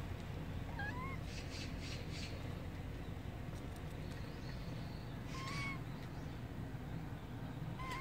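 Cat giving three short, high mews: about a second in, about five and a half seconds in, and again at the end.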